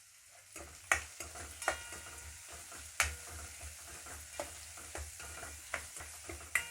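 Chopped onion, garlic and dried red chillies frying in oil in a kadai, with a steady sizzle while a spatula stirs them. The spatula knocks against the pan every second or so, some knocks ringing briefly.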